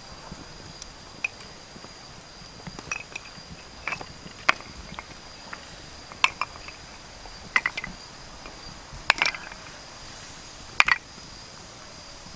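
Hard snail shells clicking and knocking together as they are set down one by one among others on a stick grill. About eight sharp clicks come at irregular intervals. A faint steady high tone runs underneath.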